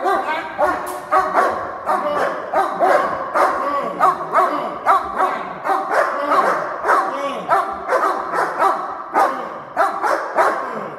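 Two German Shepherds barking continuously and overlapping, about two barks a second, at a protection helper: a hold-and-bark, in which the dogs guard the man by barking without biting.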